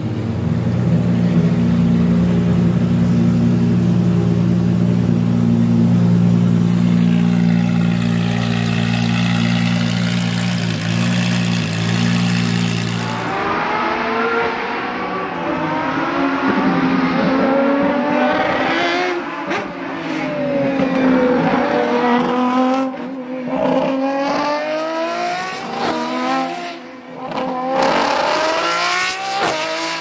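Lamborghini Essenza SCV12's naturally aspirated V12 running steadily at a low, even pitch for about the first 13 seconds. Then a V12 at full throttle passes several times, its pitch rising through the revs and dropping at each shift and as the car goes by.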